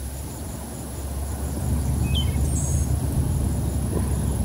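Low, uneven rumble of wind on the microphone, with a few short high chirps about two seconds in.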